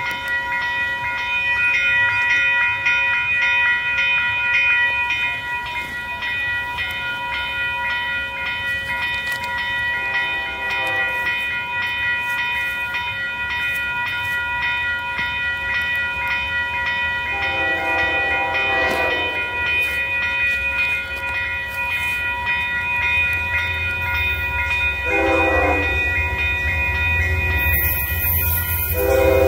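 An approaching Amtrak passenger train sounds its horn: a short blast about a third of the way in, a long one about two-thirds in, another short one, and a fourth starting at the end. A bell rings steadily throughout, and the rumble of the train grows over the last few seconds.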